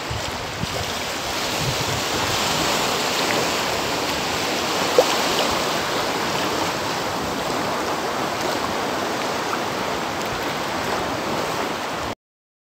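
Steady wash of choppy sea waves breaking at the water's edge, with wind. A brief sharp tick about five seconds in, and the sound cuts off abruptly near the end.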